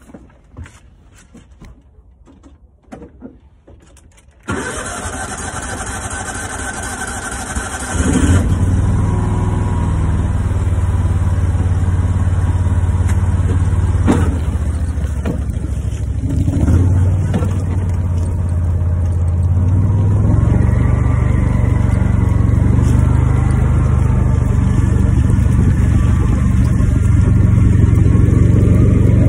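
John Deere Gator utility vehicle's engine being started about four seconds in. It settles into a steady, loud running hum about eight seconds in, then rises a little in pitch near twenty seconds as the vehicle pulls away and drives.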